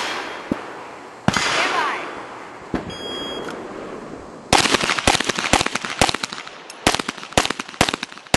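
Shot timer beeps once, and about a second later a handgun fires a rapid string of shots with a short pause partway through. Earlier, two sharp bangs ring out with long rolling echoes.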